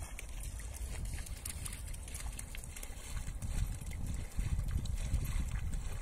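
Wind buffeting the microphone as an unsteady low rumble, over a faint wash of small waves lapping in shallow water on a sandy beach.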